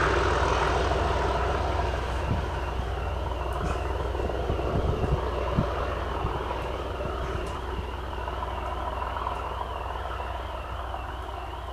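Class 37 diesel locomotive's engine rumble fading away as the test train recedes, while a car alarm, set off by the passing train, warbles up and down steadily from about three seconds in.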